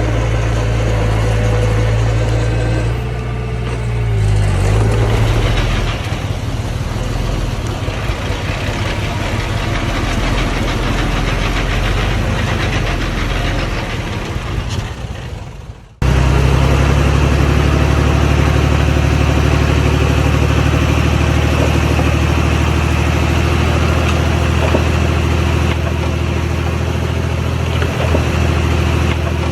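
Diesel engine of earth-moving machinery running steadily, its pitch dipping and changing about four seconds in. About halfway through, the sound cuts off suddenly and a second steady engine sound takes over.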